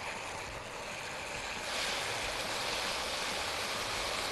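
Boiling water poured from an electric kettle into a pot of toasted rice, a steady splashing rush that grows louder about two seconds in.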